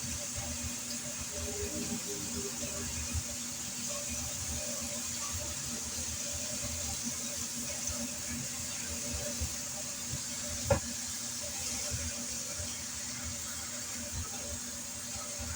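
Fluorescent light fixture buzzing with a steady electrical hum, over a steady hiss. One sharp click comes about ten and a half seconds in.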